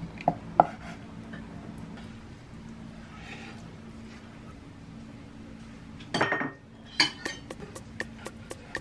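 Kitchen knife slicing a block of tofu and knocking on a wooden cutting board: two sharp knocks near the start, then a quick run of taps, about four a second, in the last two seconds as the slices are cut.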